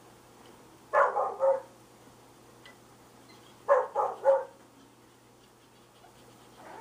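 Month-old red nose pit bull puppy giving short, high barks: a brief burst about a second in, then three quick barks near four seconds.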